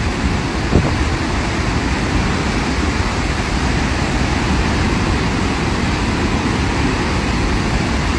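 Steady, deep roar of Victoria Falls, a huge mass of water plunging into its gorge, with a brief low thump about a second in.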